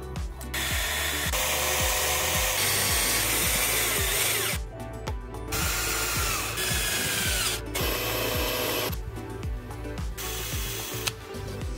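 Cordless drill with a small bit boring holes in a clear acrylic block, running in three spells, the second winding down in pitch and the last short, over background music.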